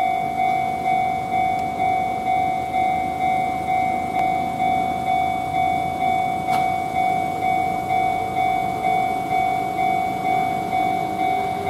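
Japanese railway level-crossing warning bell ringing: an electronic 'kan-kan' tone struck evenly about twice a second, with the rumble of the approaching train underneath.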